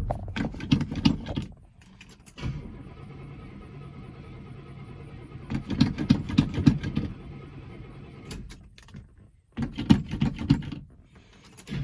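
1971 Oldsmobile Cutlass S being started: the starter cranks in several short bursts, with a quieter steady stretch between, while the gas pedal is feathered, and the engine catches at the very end.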